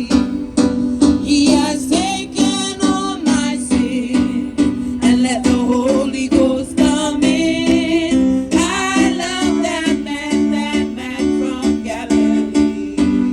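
Gospel worship music: a strummed plucked-string accompaniment with a wavering melody line over it.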